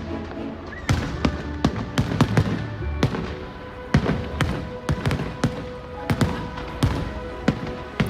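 Fireworks going off in rapid, irregular bangs, several a second, with music playing underneath.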